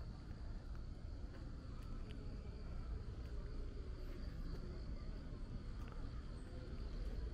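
Insects trilling steadily in a high, even band, over a low background rumble.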